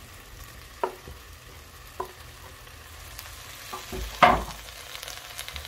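Beans and seasonings sizzling faintly in a pressure cooker on a gas stove while chopped tomatoes are scraped off a wooden cutting board with a knife into the pot, giving a few light knocks. About four seconds in there is one louder clatter and thud against the pot.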